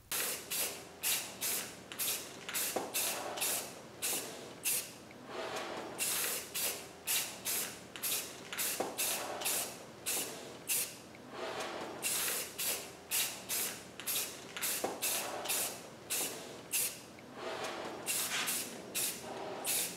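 Aerosol spray paint can spraying in many short bursts, about two a second, with a few longer passes, as paint is dusted onto small metal machine parts.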